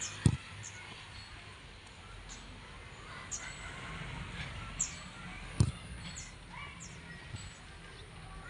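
Two dull thuds of a football being struck, one just after the start and one about five and a half seconds in, with short bird chirps repeating in the background.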